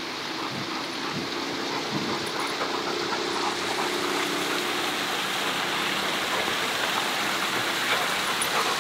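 Steady rush of falling water from a backyard waterfall, growing slowly louder.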